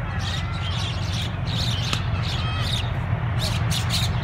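Low, steady rumble of an approaching diesel locomotive working hard under black exhaust smoke, with birds chirping and squawking over it.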